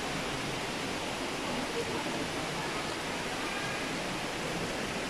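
Steady, even rushing noise of running or falling water, with faint distant voices now and then.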